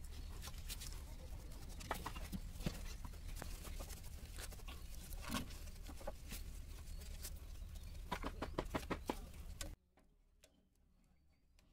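Faint scattered clicks and rubbing from hands twisting a rag-wrapped spin-on diesel filter onto its filter head on an excavator engine, over a low hum. The sound cuts off suddenly near the end.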